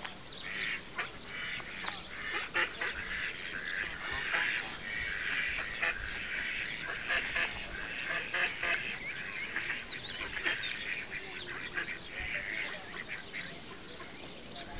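A flock of mallards calling, many short quacks overlapping without a pause.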